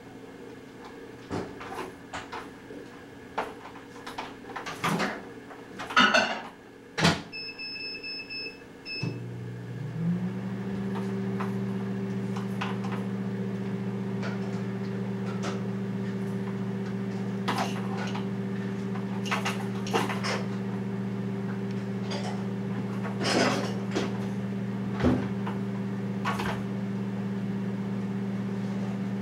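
Scattered clicks and knocks, the loudest about six and seven seconds in. A brief high beep follows, then about nine seconds in a microwave oven starts up and hums steadily, with more clicks and knocks over it.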